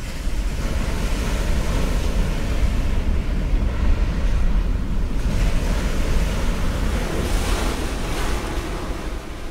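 Large ocean waves breaking and rushing as surf, a steady deep rumble of water that eases off near the end.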